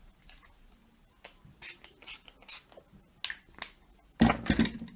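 Pump-mist setting spray (NYX Matte Finish) spritzed at the face: a run of short hissing puffs. Near the end comes a louder handling bump and rustle.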